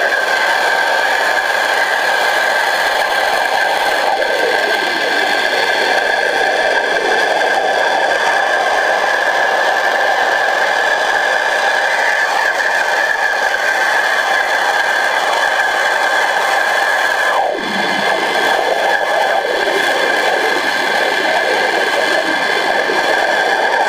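Pressure washer jet spraying underwater, picked up by a submerged camera: a loud, steady rushing hiss with a constant high whine running through it. About 17 seconds in it dips briefly with a short falling sweep, then carries on as before.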